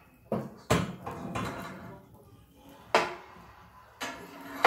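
Sharp knocks and clinks of hard objects being handled at a wood-burning fireplace: two close together near the start, one about three seconds in and one at the end, each ringing briefly.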